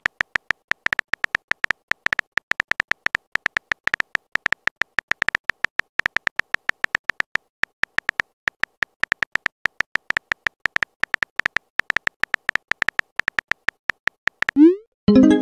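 Texting app's keyboard-tap sound effect: short clicks with a beep-like tone, about six a second, as a message is typed character by character. Near the end a short rising swoosh, the message-sent sound.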